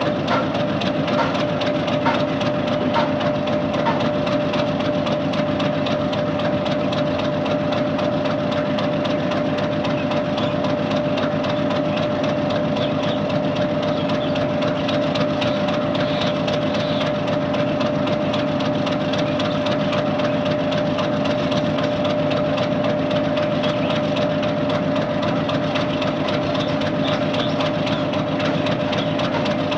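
Diesel-electric locomotive idling steadily: a low engine drone with a steady whine held on top.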